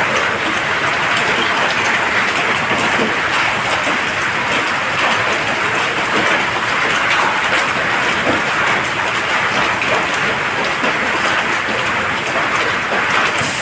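Heavy rain falling steadily, an even, continuous hiss.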